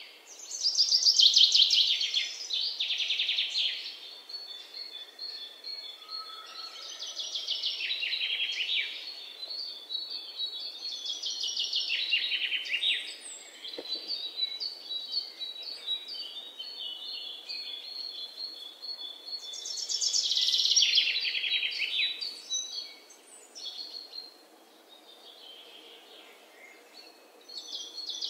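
Birds chirping: bursts of fast, high trills that fall in pitch come every few seconds, with runs of short repeated high chirps between them. The birds go quieter near the end.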